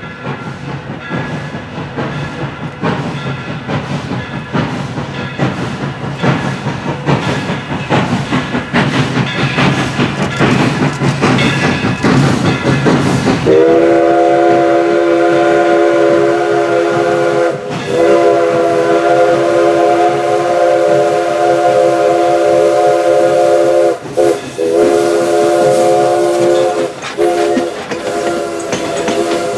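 Steam locomotive CNJ 113 working hard as it approaches, its exhaust chuffs coming quicker and louder. About halfway through its whistle starts, sounding several notes at once, and blows a series of long blasts broken by short gaps as the engine draws alongside.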